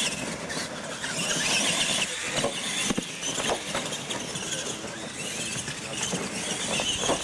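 Radio-controlled monster trucks racing flat out: motors and gears making a wavering high whine over the hiss of tyres on dirt and gravel, with a few short knocks as they hit the ramps.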